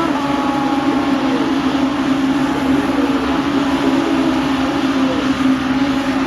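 Racing car engines running at speed on a circuit, several at once, with a steady engine drone throughout; right at the start one engine's pitch falls away as it passes.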